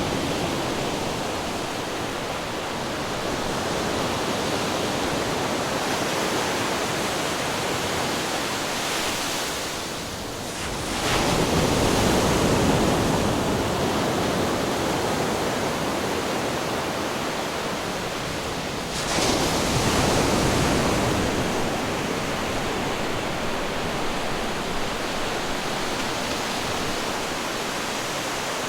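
Ocean surf: a steady rushing wash of water, with two waves breaking on rocks, one about a third of the way in and another about two-thirds in, each a sudden louder crash that dies away over a few seconds.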